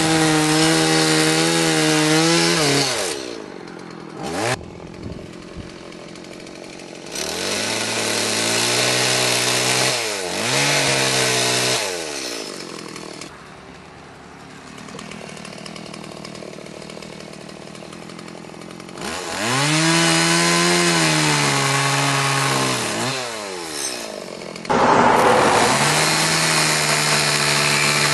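Two-stroke chainsaw carving wood, revved to full speed in bursts of a few seconds and dropping back to idle between them. The last few seconds are the loudest burst, with the chain cutting into the log.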